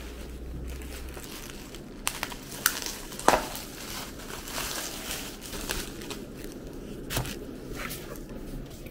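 Plastic packaging and bubble wrap crinkling and rustling as a parcel is unwrapped by hand, with a few sharp crackles, the loudest a little over three seconds in.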